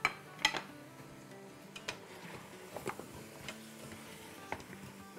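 Wooden spoon knocking and scraping against the stainless steel inner pot of an Instant Pot while mutton and dry spices are stirred. It gives about six sharp, irregular clicks over soft background music.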